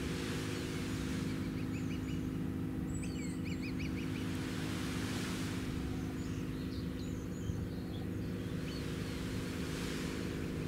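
Steady low hum of a moored destroyer's machinery, several pitched tones held together without change. Small birds chirp over it in short runs of calls about three seconds in and again around six to eight seconds, with a soft hiss swelling and fading roughly every five seconds.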